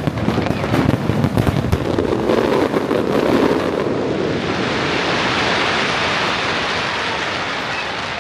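Fireworks going off in a dense run of crackles for about four seconds, then a steady hiss that slowly fades.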